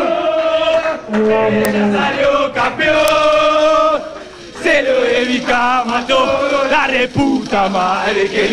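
A group of football players chanting a celebration song together, loud and sung in unison, with a brief dip about four seconds in before the chant picks up again.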